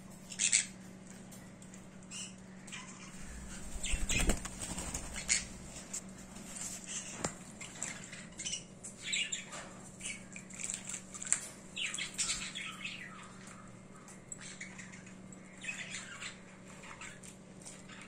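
Conure bathing in a shallow dish of water, flapping its wings and splashing in short, irregular bursts. The loudest splash and bump comes about four seconds in.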